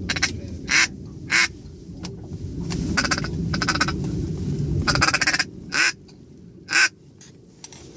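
Duck call blown close by, giving single loud quacks and two quick runs of quacks, to work a big duck that has locked up over the decoys. Low wind rumble on the microphone underneath, which drops away near the end.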